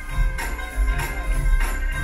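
Upbeat stage-musical music played through a theatre sound system, with a strong bass pulse and a sharp percussion hit on each beat, about one every 0.6 seconds.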